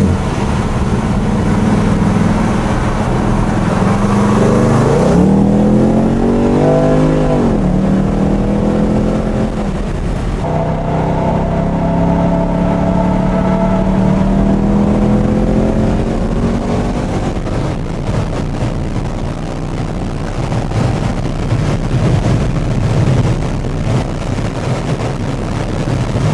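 Cammed HSV VE Maloo V8, heard from inside the cabin, pulling hard on track: the revs climb steeply, drop sharply at a gear change about seven seconds in, then climb again more slowly, with rougher engine and road noise in the second half.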